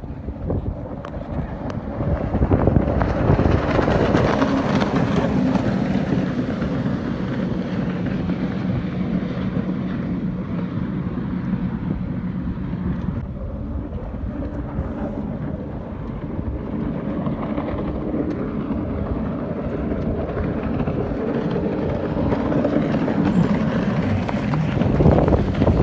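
Watercraft engine running steadily at speed, with wind buffeting the microphone and water rushing past.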